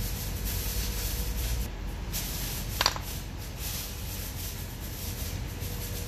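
Metal and plastic parts of a Mercedes W221 center-console armrest hinge being handled and worked loose, over a steady hiss, with one sharp click about three seconds in.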